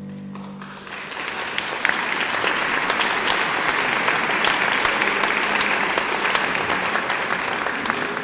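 Audience applauding in a church, the clapping swelling in about a second in as the choir's last held chord dies away, then going on steadily.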